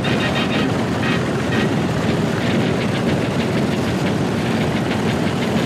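Engine running steadily with a rapid rattling clatter.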